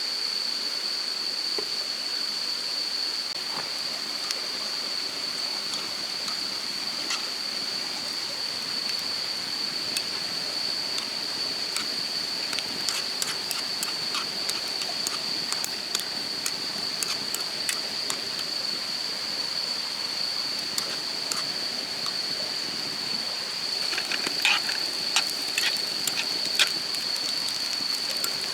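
Wood fire crackling with sharp pops, more of them in the second half and a few louder ones near the end, over the steady rush of a stream and a constant high-pitched tone.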